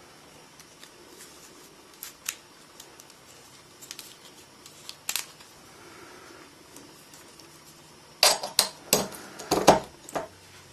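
Hard plastic clicks and knocks as USB memory sticks are handled and pushed into the ports of a USB 3.0 hub: a few scattered clicks, then a quick run of louder clicks about eight seconds in as a stick is seated.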